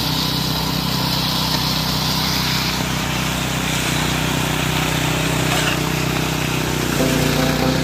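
Small air-cooled engine of a walk-behind concrete power trowel running steadily under load as its blades float the fresh concrete slab, with a constant hiss over the engine's drone.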